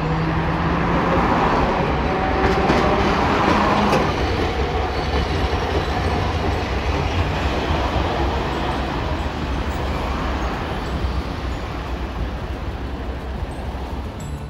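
Hiroden streetcar No. 702 running past on street track: the wheels rumble over the rails and the car hums, with a faint thin wheel squeal in the first few seconds as it comes through the curve. The sound is loudest in the first four seconds, then eases as the tram moves away.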